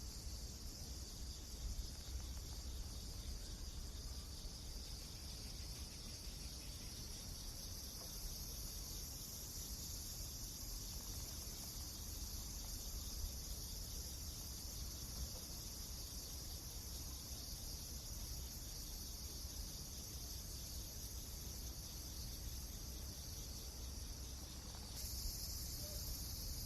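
A steady chorus of crickets or similar insects, a continuous high shrill trill over a low steady rumble. Near the end the trill abruptly shifts to a different, brighter pattern.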